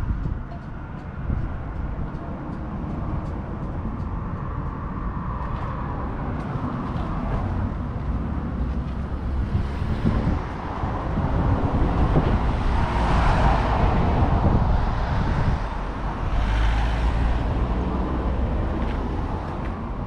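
Road traffic going past, with a vehicle passing that swells and fades about halfway through, over a steady low rumble.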